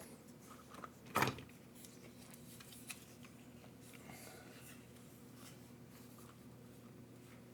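Quiet handling of small plastic parts and wiring, with one sharp click about a second in and a few faint clicks and rustles after, over a steady low hum.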